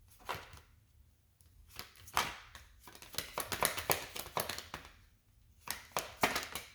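Tarot cards being handled: quick papery flicks and slaps, a dense run of them in the middle and another short flurry near the end.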